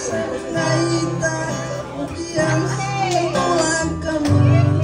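Background music: a song with a singing voice over steady bass notes that change about once a second.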